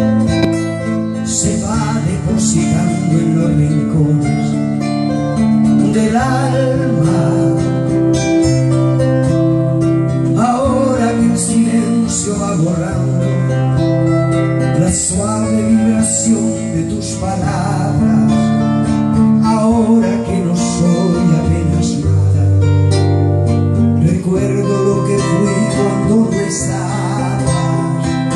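Acoustic guitars playing a song together, strummed and picked chords that change every second or two.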